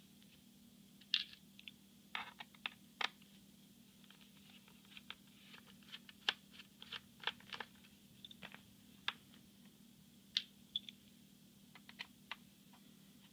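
Scattered light clicks and taps of small hard objects being handled on a work surface, coming irregularly, over a faint steady hum.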